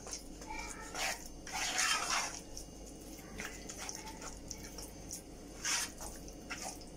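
Wooden spoon stirring a thick, wet carrot and rice mixture in a metal saucepan: squelching, sloshing strokes, loudest in a run about one to two seconds in and once more near six seconds.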